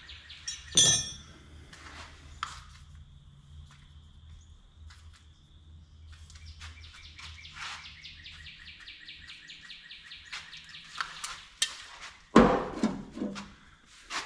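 Spray can of penetrating oil being handled and used on the tractor's exhaust manifold bolts. There is a sharp metallic clink about a second in, then a run of quick, even rattles as the can is shaken, a few short sprays and clicks, and a loud thump near the end.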